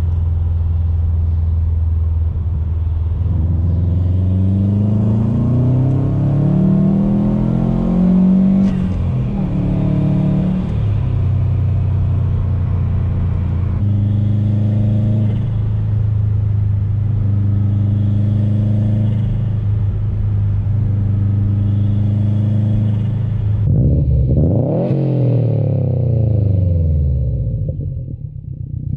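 Turbocharged 2.5-litre flat-four of a 2015 Subaru WRX STI, fitted with a Grimmspeed catted downpipe, running with the revs climbing steadily through a pull and dropping suddenly about nine seconds in, then holding steadier revs. Near the end it revs sharply up and down.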